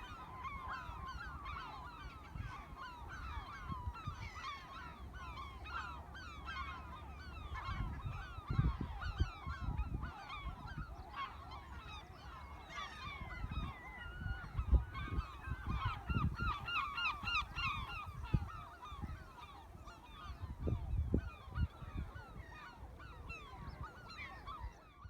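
A large flock of gulls calling continuously, many short, falling cries overlapping into a dense chorus. Low thumps break in now and then, loudest about nine, fifteen and twenty-one seconds in.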